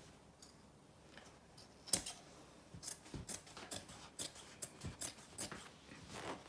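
Dressmaking scissors cutting through thick denim: a sharp snip about two seconds in, then a run of short snips at about three a second.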